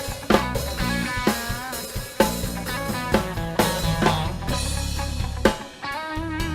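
Rock music with electric guitar, bass and a drum kit keeping a steady beat; the guitar lines bend in pitch.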